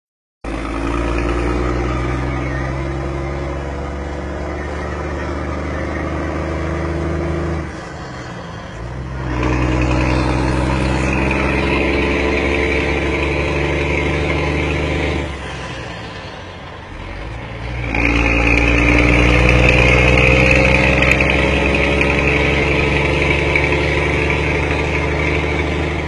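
Scania truck's diesel engine rumbling deeply under load. Its note drops off about 8 seconds in and again about 16 seconds in, then comes back louder each time, climbing slowly in pitch in the last stretch.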